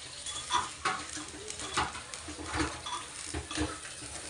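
Metal kitchen utensils clinking and scraping: a spatula stirring in a cooking pan on a gas stove and dishes being handled at the sink, in a run of irregular sharp clinks about one or two a second.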